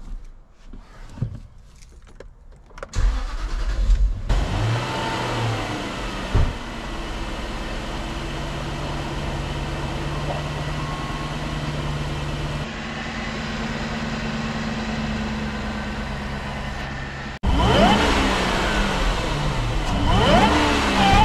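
A 2009 Jaguar XF's supercharged 4.2-litre V8 starts about three seconds in, after a few faint clicks, and settles into a steady idle on its freshly fitted engine mounts. Near the end it is revved a few times, rising and falling.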